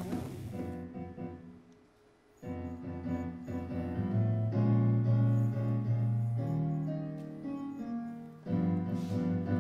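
Studio band playing an instrumental intro on electric keyboard and bass guitar: held chords over low bass notes, after a short near-quiet gap about two seconds in. A frying sizzle fades out in the first moment.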